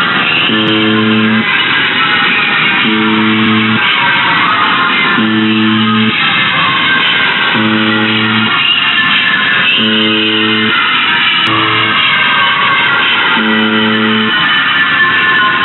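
Buzzer sounding a low buzz in regular pulses, about one every two and a half seconds, each under a second long, with one short extra blip about halfway. Over it runs a dense, garbled higher sound that comes across like guitar music.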